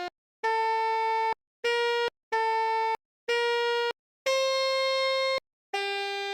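Pianika (melodica) playing single held notes in the manner of a Basuri telolet bus horn: six reedy notes with short silent gaps between them, the longest and highest about two-thirds through.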